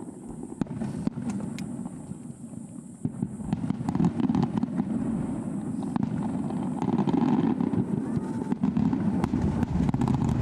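Aerial fireworks display going off: a steady low rumble of bursts with many sharp crackles throughout.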